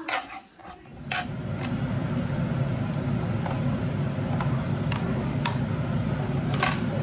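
A knife clicking against a cutting board, then from about a second in a steady low hum of a kitchen fan, with a few light clicks.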